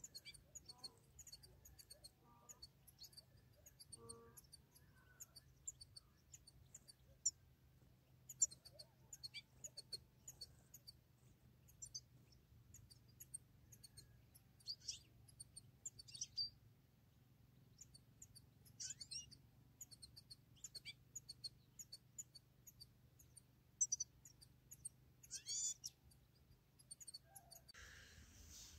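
European goldfinches twittering faintly: many scattered, thin, high chirps, with a few longer calls from about halfway on.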